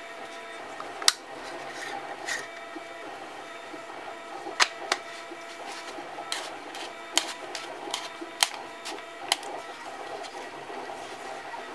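Hard plastic and metal parts clicking and knocking as a camera lens and a 3D-printed plastic housing are handled and fitted together by hand: about eight sharp clicks at irregular intervals.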